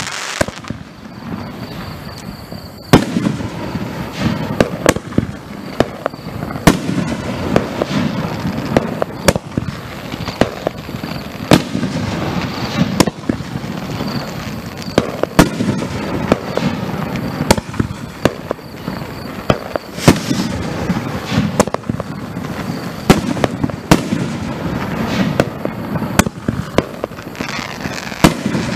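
Jelly-Fish King 9-shot fireworks cake firing: its shells launch and burst in a run of sharp bangs, one every second or two, over continuous noise. The first loud bang comes about three seconds in.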